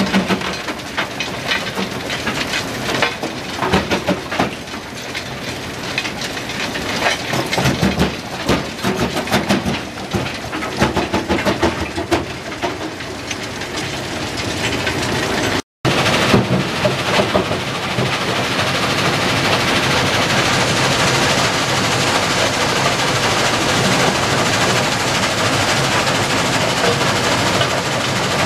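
Kue-Ken rock crushing plant running. For about the first half, rock clatters through the feed hopper with irregular knocks. After a brief cut, the crusher, screens and conveyors make a steady, dense machinery noise.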